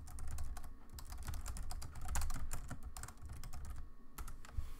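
Typing on a computer keyboard: a rapid run of key clicks as a sentence is typed, thinning out near the end.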